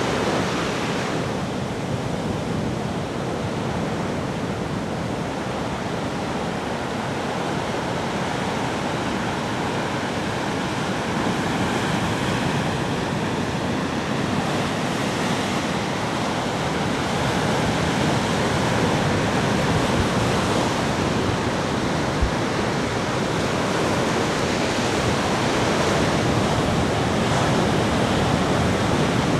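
Ocean waves breaking on a beach: a steady wash of surf that swells and eases slowly.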